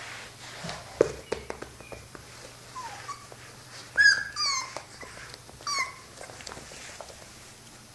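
Five-week-old dachshund puppy giving several short high-pitched yips and whimpers that fall in pitch, the loudest about four seconds in and again just before six seconds, with a few soft taps between them.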